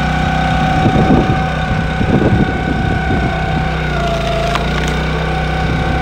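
The log splitter's 6.5 HP petrol engine running its hydraulic pump with a steady whine as the wedge drives down through a log. About four seconds in the whine dips in pitch as the engine takes the load, with a few sharp cracks as the log splits.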